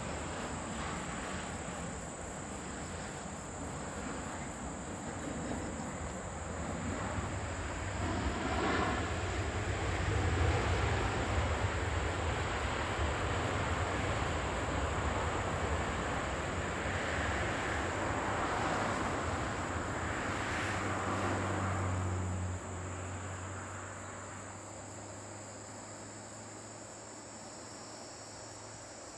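Boeing 737-800's CFM56 jet engines during landing and rollout: an even rush of engine noise builds about eight seconds in, stays loud, then drops off suddenly near the end and settles lower as the airliner slows. Crickets chirp in a fast, steady high-pitched pulse throughout.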